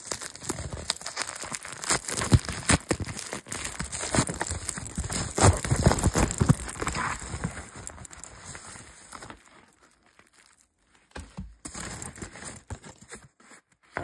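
Packaging crinkling and rustling as a pink mailer is handled, busy and dense with sharp crackles for the first eight or nine seconds, then mostly quiet with a few short rustles near the end.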